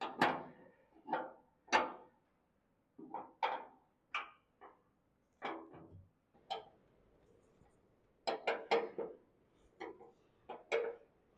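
Irregular metallic clinks and taps of a wrench and bolt hardware as fender bolts are fitted and tightened, with a quicker run of clicks past the middle.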